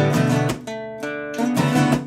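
Acoustic guitar strumming chords. The strumming drops back about half a second in, and a strong strum comes in around a second and a half in.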